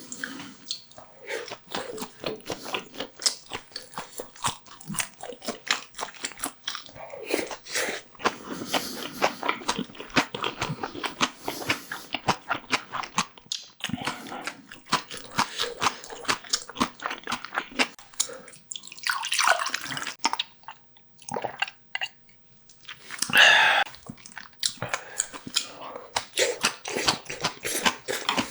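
Close-miked eating sounds: wet chewing and biting with rapid small clicks throughout. Two louder, longer noisy sounds come about two-thirds of the way through and again a few seconds later.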